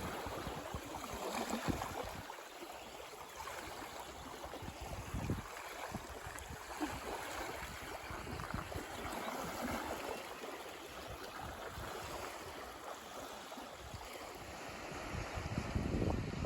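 Outdoor ambience of wind and water: an even rushing of water, with gusts of wind rumbling on the microphone that swell near the end.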